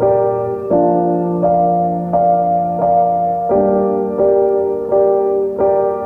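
Background music: keyboard chords with a piano-like tone, a new chord struck at a steady pace of about one every 0.7 seconds.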